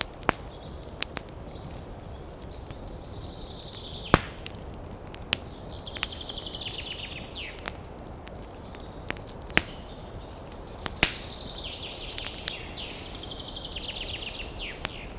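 Campfire crackling: irregular sharp wood pops, about a dozen, the loudest about four seconds in, over a steady low rush. A bird's rapid chattering call rings out twice, high-pitched and descending, in the middle and near the end.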